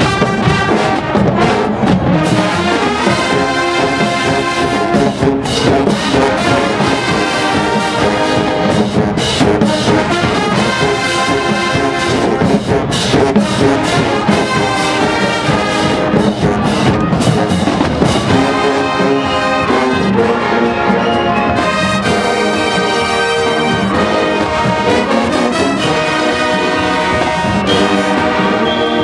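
Marching band playing loudly: a full brass section over drums. Sharp drum hits run through the first part; about twenty seconds in, the drums ease off and the horns hold long chords.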